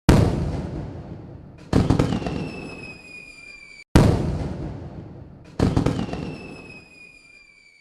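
Fireworks going off, the same sequence twice: a loud boom, then about a second and a half later a second burst with crackling and a thin, high whistle that falls slightly in pitch as it fades.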